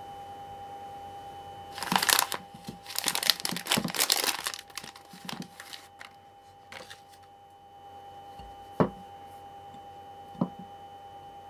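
Crinkly plastic film wrapper of a packaged sponge cake being torn open and handled, in dense bursts for about three seconds, then lighter crackles. Later come two sharp taps, with a faint steady tone underneath.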